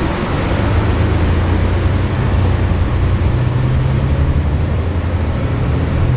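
Steady engine drone and road noise inside a New Flyer Xcelsior articulated bus under way, the low engine note rising a little about halfway through.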